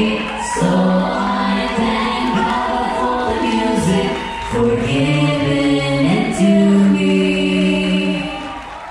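A vocal ensemble singing long held chords together over backing music, fading out near the end.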